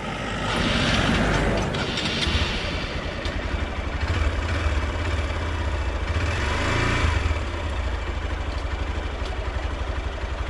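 Hero XPulse 200's single-cylinder, air-cooled 200 cc engine started and idling with a steady, even pulse, briefly louder about two-thirds of the way through. A passing vehicle is heard about a second in.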